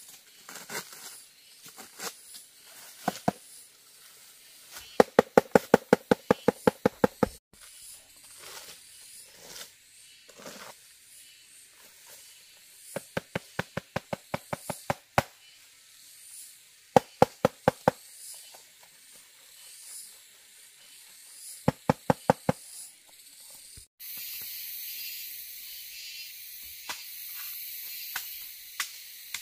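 Four quick bursts of sharp knocking, about eight to ten blows a second, with scattered single knocks between them. About 24 seconds in it changes abruptly to a steady high hiss.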